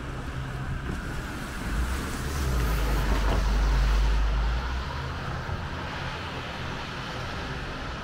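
Road traffic noise from a vehicle passing on the adjacent roadway. A low rumble swells for about three seconds in the middle, over a steady background of traffic.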